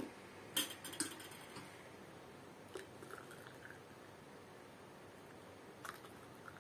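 Glass tea glasses clinking twice against a metal tray, then a few lighter clicks and the faint trickle of a stainless steel kettle pouring into a tea glass.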